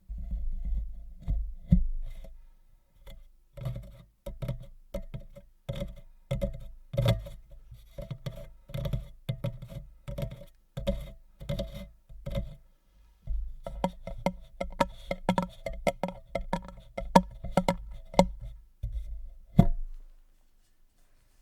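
Irregular tapping and knocking on a hard object, a few taps a second, each with a dull low thump and a light ring; the tapping stops shortly before the end.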